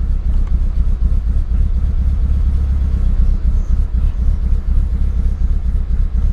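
Mitsubishi Lancer Evolution VIII's 2.3-litre stroker 4G63 turbocharged four-cylinder idling steadily. It is heard from inside the cabin as a low, even rumble.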